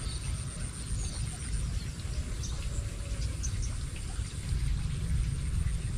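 Rural outdoor ambience: a steady low rumble with faint, scattered high chirps of birds and insects.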